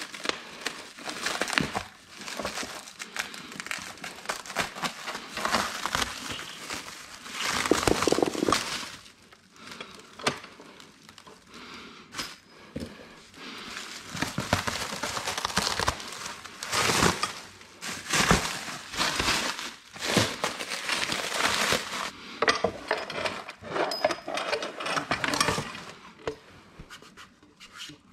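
Plastic stretch wrap crinkling and rustling in irregular bursts as it is cut with scissors and torn away by hand.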